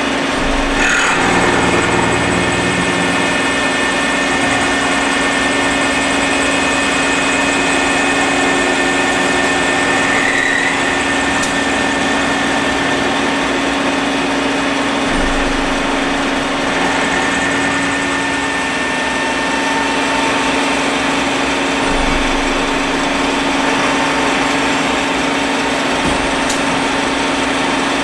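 Citizen A32VII Swiss-type CNC lathe milling a bar part with a rotating end mill. The machine runs steadily, a constant hum and whine over a dense hiss, while the main and sub spindles turn in step (C2 following C1) to support the part during milling.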